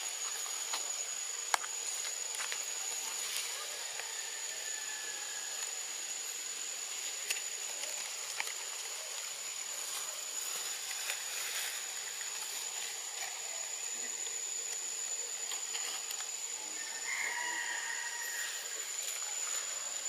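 Outdoor forest ambience: a steady high-pitched insect whine with scattered faint clicks and rustles, and a faint distant call near the end.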